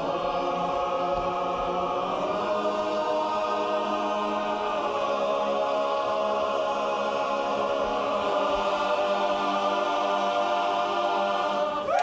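Men's barbershop chorus singing a cappella, holding the song's long closing chord. The chord shifts once about two seconds in, then is sustained steadily and cut off together at the very end.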